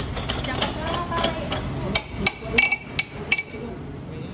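Metal-on-metal clinks and knocks from hand tools on a lathe: about six sharp, ringing strikes in quick succession starting about two seconds in.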